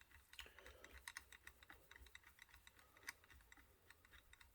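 Faint, irregular light clicks and taps from hands working the CPU cooler's metal mounting hardware and screws.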